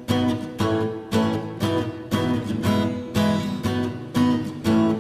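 Background music: an acoustic guitar strummed in a steady rhythm, about two strokes a second, starting right at a cut.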